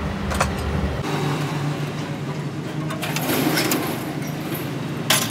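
An engine running steadily, its note changing about a second in, with a couple of sharp clicks.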